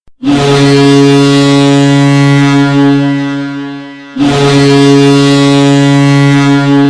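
Boston Bruins hockey goal horn, a deep ship-style horn, blaring in two long blasts: the first lasts about four seconds and fades near its end, and the second starts right after it. It signals a goal scored.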